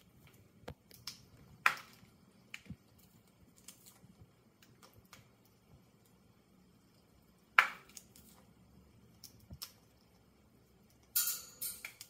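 Amazon parrot picking at a dried ear of corn held in its foot, its beak prying kernels off the cob: sparse small clicks, with two sharper snaps, one about two seconds in and one near eight seconds, and a short noisy rustle near the end.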